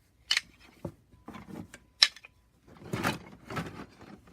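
Wooden toy railway track pieces being picked out and handled, knocking and scraping against each other, with a few sharp clacks.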